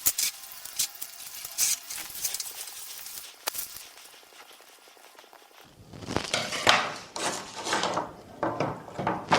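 Handling noises: scattered clicks and taps, a quieter stretch, then louder rustling and scraping from about six seconds in.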